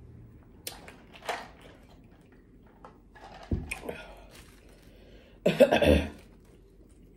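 A person coughs once, briefly, about five and a half seconds in, the loudest sound, after a few soft mouth clicks and smacks; the cough follows eating spicy buffalo wings.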